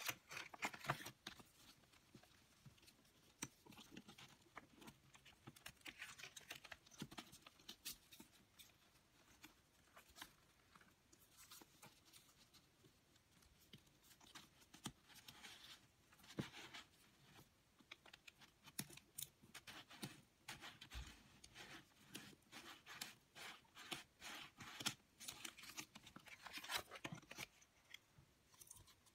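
Quiet, scattered rustling and light taps of paper and card being handled by hand, in irregular clusters.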